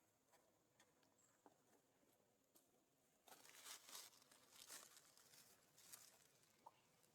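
Near silence, with faint scattered ticks and, from about three seconds in, a few seconds of faint rustling and crinkling.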